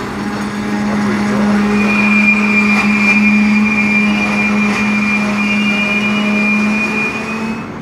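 Metra bilevel passenger cars rolling slowly past the platform as the train comes in to stop, with a steady low hum and a high-pitched squeal of the wheels and brakes starting about two seconds in.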